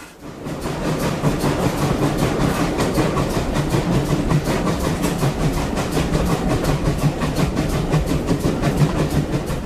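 Heritage railway train running, with a fast, even run of beats.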